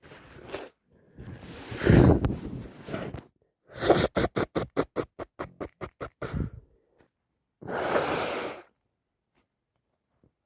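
A person with a cold: a drawn-in breath and a wet sneeze about two seconds in, then a fast run of about a dozen short, sharp breaths at roughly five a second, and one longer breath near the end.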